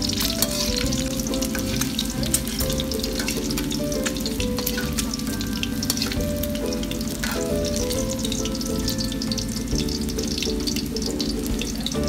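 An egg frying in shallow oil in a steel wok: a steady crackling sizzle made of many fine pops.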